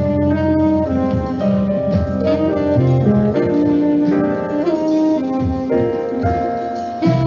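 Instrumental background music with piano and guitar, in a light jazz style.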